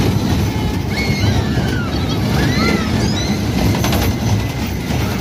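Stagecoach-themed kiddie ride running, its cars rumbling steadily round the track. A few brief high squeals rise and fall about one to three seconds in, and a few sharp clicks come near four seconds.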